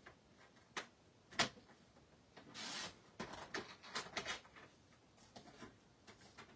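Paper trimmer in use: sharp clicks as the blade is set on its rail, a short scraping swish of the blade sliding along the track to slice a thin strip off card stock about two and a half seconds in, then light clicks and paper rustling as the card and offcut are handled.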